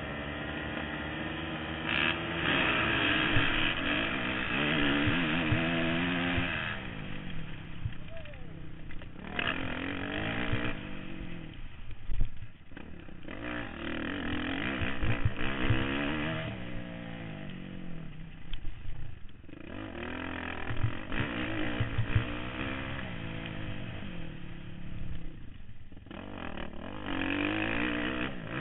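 Motocross bike engine, heard close up from a camera mounted on the bike. It runs at the start line, then from about two seconds in revs hard off the start. Its pitch climbs and drops again and again as the rider goes through the gears and rolls off for turns.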